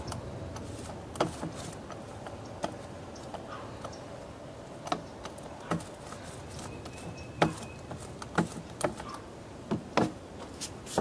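Scattered light clicks and knocks at irregular intervals, a few sharper ones in the second half, over a faint steady background.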